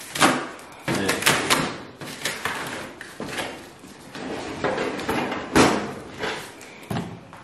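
Cardboard packing and plastic-wrapped parts being handled and pulled out of a gas grill's cook box: irregular scrapes, rustles and knocks, the sharpest about five and a half seconds in.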